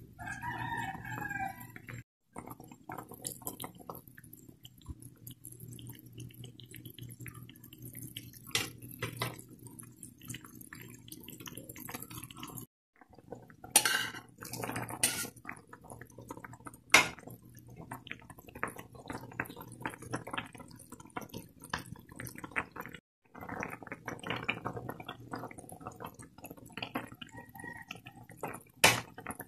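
A pot of vegetable soup boiling, bubbling and popping over a low steady hum. About 14 seconds in, a spoon clinks against a plate as crab sticks are scraped into the pot, with another clink a few seconds later. The sound cuts out briefly three times.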